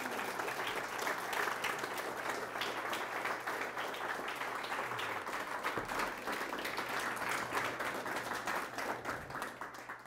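A roomful of people applauding steadily at the end of a talk, the clapping thinning out near the end.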